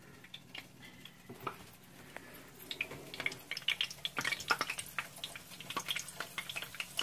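Hot oil crackling and popping in a frying pan as egg rolls are laid into it. There are a few scattered clicks at first, and the crackling grows dense and irregular from about two and a half seconds in.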